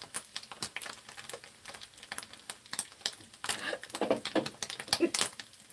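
Egg-coated sausage slices frying in hot oil in a frying pan, the oil crackling and spitting in many sharp, irregular pops. The cook puts the heavy spattering down to too much oil in the pan.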